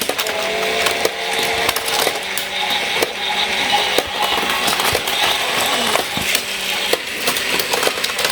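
Battery-powered Plarail toy trains running on plastic track: a steady motor hum under a busy clatter of many small clicks.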